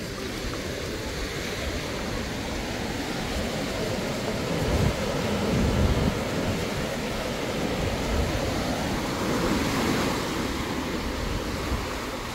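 Sea surf breaking and washing up on a sandy beach, a steady wash that swells louder about halfway through and again a little later.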